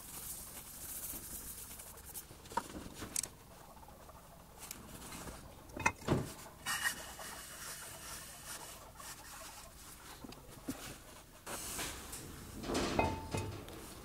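Quiet scuffing and rubbing of hands and a steel vise base on a granite surface plate, with a few light knocks as the steel parts are set down. The vise base is being slid on the Prussian-blued plate to spot its high and low spots.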